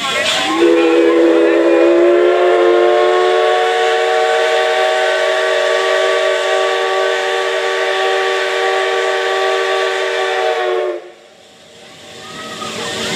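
C56 steam locomotive's steam whistle blowing one long blast of about ten seconds, several tones sounding together. It slides up slightly in pitch as it opens, then holds steady before cutting off sharply.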